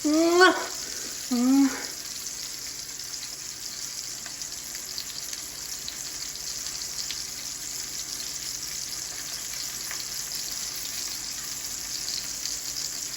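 Ribeye steaks frying in a pan with a steady sizzle. A man's voice is heard briefly during the first two seconds.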